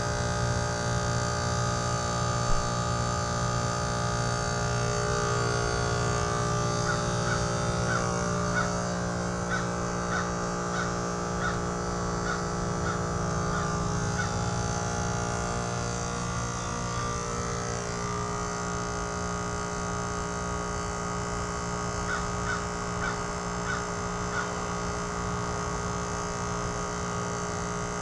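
Trane XR14 heat pump running steadily in its defrost cycle, a steady hum of several tones from the compressor. Over it, a run of short high chirps about twice a second comes in about a quarter of the way through and again briefly later.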